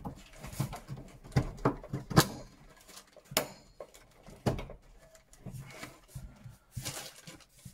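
Irregular plastic clicks and knocks, with rustling, as a new sump on an Ideal Logic combi boiler is pushed up into place and its front clips are snapped on. A few of the knocks, near the middle and near the end, are louder.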